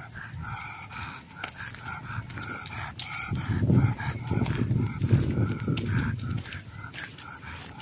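A spaniel panting in quick, regular breaths, about four a second, over crunching steps on gravel. A louder low rumble comes in about three seconds in and lasts a few seconds.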